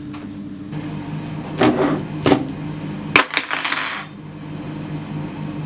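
A plastic food bowl and other items being handled and set down on a kitchen counter, giving a few short knocks and clatters, the sharpest about three seconds in. A steady low hum runs underneath.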